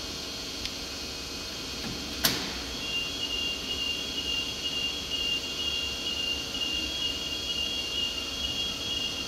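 Still RX20-20 electric forklift working: a sharp clack about two seconds in, then a steady high-pitched whine from its electric motors over a running hum.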